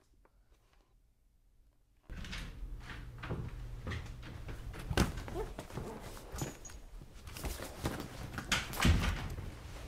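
A door being opened and shut amid a run of short knocks and clatters, with the loudest thumps about five seconds in and again near the end.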